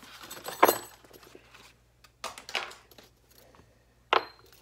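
Small parts from a new fork seal rebuild kit being unpacked by hand and set down on a workbench: a few separate clinks and knocks, the sharpest near the end.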